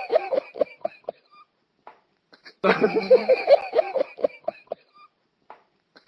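A man laughing heartily. A laugh trails off into short 'ha' pulses in the first second, and a second bout starts about two and a half seconds in, lasts about two seconds and tapers off the same way.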